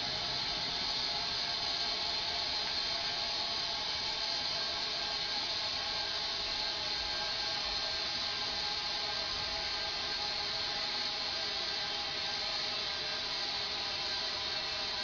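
Compressed air hissing steadily out of a tank at about 105 psi through an open sprinkler valve, with a few faint whistling tones in the rush.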